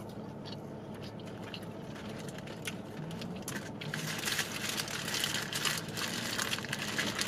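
Paper being handled and crinkled in the hands, with a few light clicks at first, then a steadier crinkling that grows louder over the second half.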